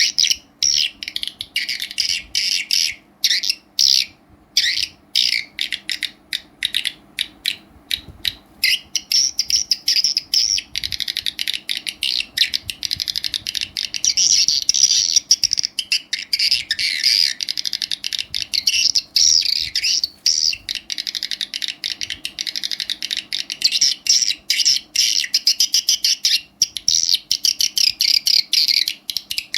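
Recorded swiftlet calls played through an amplifier and speaker: fast, dense chirping that comes in short broken bursts for about the first ten seconds, then runs almost without a break.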